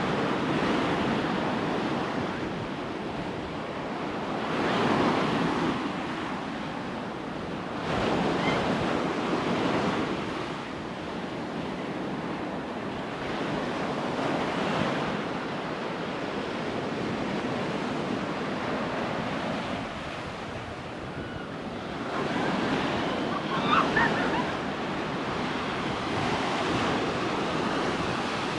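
Ocean surf breaking on a sandy beach, swelling louder every few seconds as waves come in, with wind buffeting the microphone.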